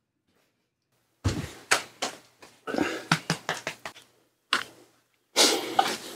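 About a second of silence, then scattered sharp hand claps and knocks with rustling noise between them.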